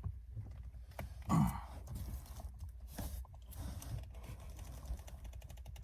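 Faint clicking and rustling of hands gripping and wrenching at a stuck stock shift knob on a Mustang GT350R shifter, with a short strained grunt about a second and a half in and a run of quick small clicks near the end.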